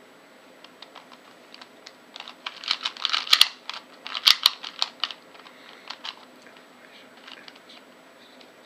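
Plastic layers of a LanLan 2x2 puzzle cube clicking as they are turned by hand. The clicks are scattered at first, come in a quick, loud flurry from about two to five seconds in, then thin out to single clicks again.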